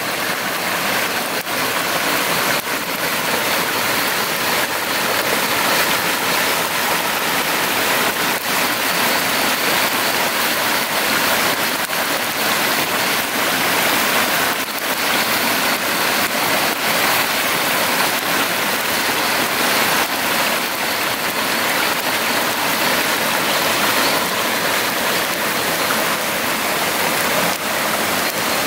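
Steady water noise with a few faint clicks.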